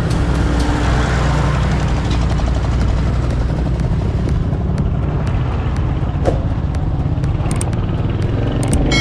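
Motorcycle being ridden on a rough dirt and gravel road: a steady low rumble of engine and wind noise.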